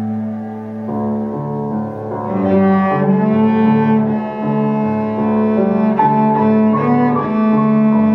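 Cello and piano playing a classical sonata: long bowed cello notes over piano accompaniment, the playing growing fuller and louder about two seconds in.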